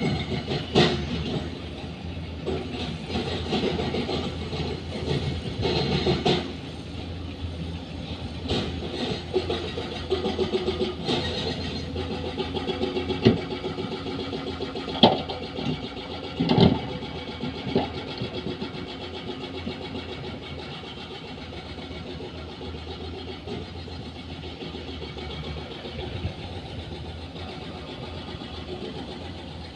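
Heavy diesel construction machinery running, a steady engine drone that is louder for the first six seconds and then settles lower. Several sharp metallic clanks and knocks come through it between about one and eighteen seconds in.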